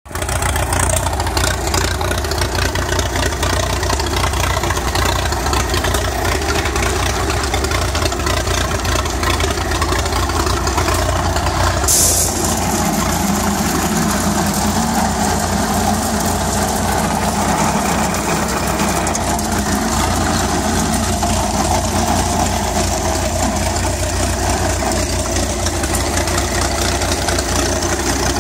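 1937 Allis-Chalmers WC tractor's four-cylinder engine running steadily under load, driving a flat belt to a 1918 Letz burr grinder that is cracking corn. A sharp click comes about twelve seconds in, followed by an added hum for several seconds.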